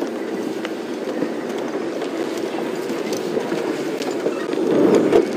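Open game-viewing vehicle driving slowly off-road: the engine runs steadily with light rattles and clicks from the vehicle, getting louder near the end.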